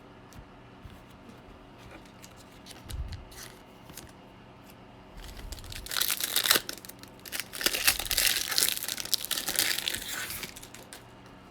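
Wrapper of a baseball card pack being torn open and crinkled by hand, a dense crackle over about four seconds in the second half, after a few faint soft thuds.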